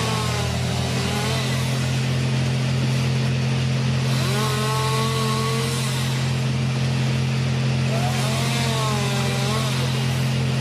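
Chainsaw engine running steadily, with a few wavering higher tones rising and falling over it.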